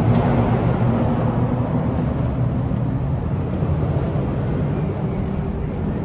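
A large engine running steadily: a low rumble holding a constant pitch, slowly easing a little in loudness.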